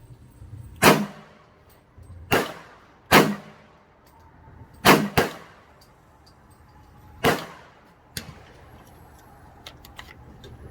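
.40 S&W handgun firing six shots at an uneven pace, two of them in quick succession near the middle, each a sharp crack with a short echo. A smaller sharp click follows about eight seconds in.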